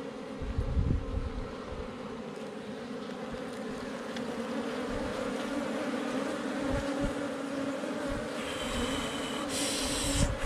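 Honeybees buzzing steadily, a disturbed colony swarming as its comb is pulled out of the underground nest; the buzz grows a little louder. Low thumps about a second in and a brief scratchy hiss near the end.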